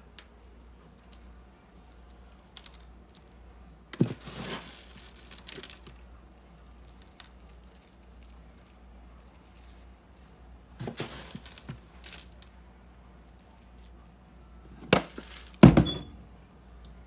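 Occasional knocks and a short rattle as a plastic cereal dispenser and Fruity Pebbles cereal are handled on a kitchen counter: a sharp knock about four seconds in with a brief rattle after it, a few lighter knocks around eleven seconds, and the two loudest knocks about a second apart near the end.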